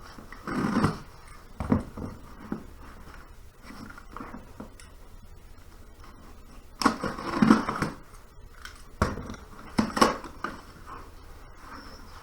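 A parts box and its packaging being opened by hand: irregular rustling, scraping and tearing in short bursts, the loudest a little past halfway.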